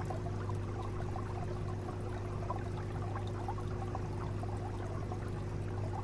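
Aquarium water trickling and bubbling steadily, as from the tank's circulating water, over a low steady hum.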